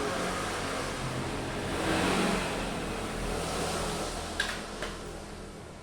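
A passing motor vehicle: a rush of engine and road noise that swells about two seconds in and then fades away, with two light clicks near the end.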